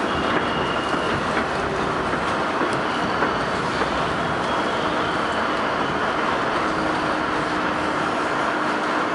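Inside a New York City Subway R68 car running on the track: a steady rumble of wheels and car noise, with a faint steady hum coming in about halfway through.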